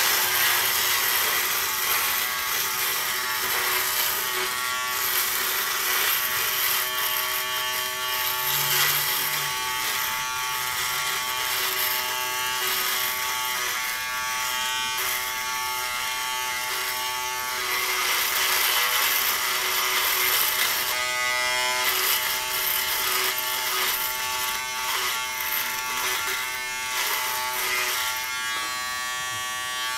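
Remington Wetech PF7580 foil shaver running and cutting stubble, its motor buzzing steadily as the head is worked in small slow circles over the face, the buzz shifting as it moves over the skin.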